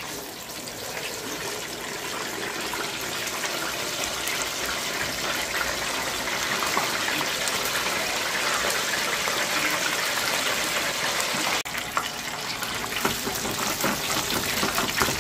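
Chicken wings deep-frying in hot oil in an electric deep fryer, on their second fry at 375°F. A dense, steady sizzling and bubbling that swells over the first few seconds as the basket settles in, then holds, with a brief dropout about twelve seconds in.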